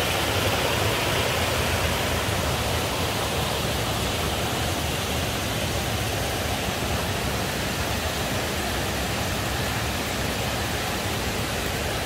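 Steady rush of water flowing out below a reservoir dam, growing slightly fainter over the seconds.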